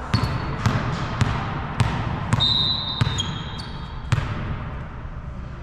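A ball bouncing over and over on a gym floor, about two bounces a second, each with a short echo. Sneakers squeak on the court near the middle.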